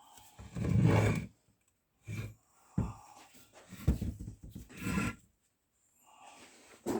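Handling noises: a rumbling scuffle about half a second in, then several sharp knocks and clunks with more scraping and shuffling near the end.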